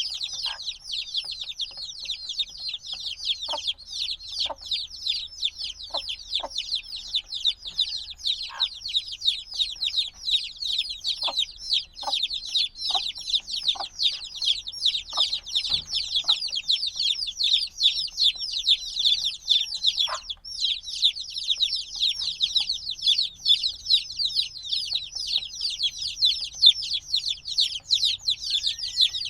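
A brood of chicks only a few days old peeping continuously: a dense, unbroken chorus of many overlapping high, downward-sliding peeps.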